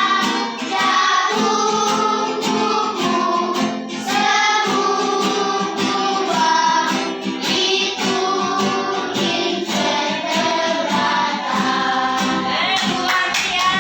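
A song sung by children's voices over instrumental accompaniment with a steady beat.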